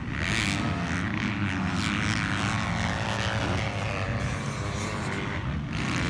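Motocross dirt bike engines running on the track, a steady droning buzz without sharp revs.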